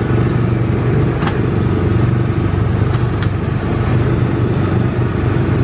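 A vehicle engine runs steadily with a constant low hum.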